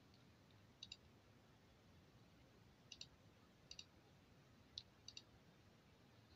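Near silence broken by a handful of faint, sharp clicks, several of them in close pairs.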